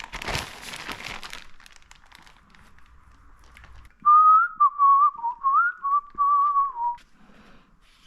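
A man whistling a short tune for about three seconds, a single clear tone that slides up and down from note to note, starting about four seconds in. Before that, a brief rustle about a second long.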